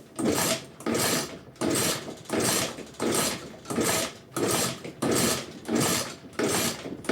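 Suzuki Sepia 50 two-stroke scooter engine being cranked over again and again without catching, about ten sharp sneezing bursts, roughly one and a half a second. The sneezing is a failed start, which the owner can't place between the muffler and a leaking crank seal.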